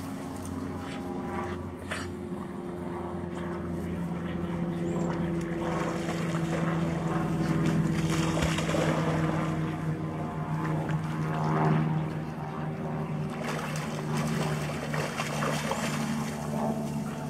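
An engine running steadily, a low, even drone that grows a little louder around the middle.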